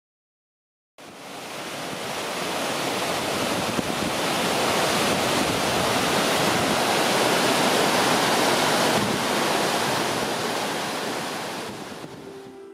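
Rushing whitewater of a river cascade, a steady rush of falling and churning water. It starts suddenly about a second in and fades away near the end.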